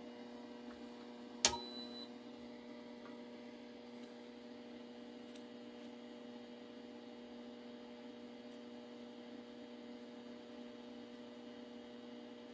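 A steady low electrical hum, with one sharp click and a brief high ring about a second and a half in.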